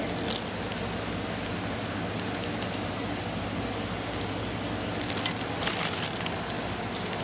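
Clear plastic packaging crinkling in short crackly bursts, briefly at the start and again in a longer cluster about five to six and a half seconds in, over a steady background hum.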